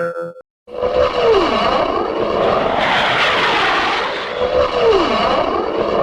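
Cartoon sound effect: a steady, noisy engine drone with a tone that falls in pitch twice, about a second in and again about five seconds in.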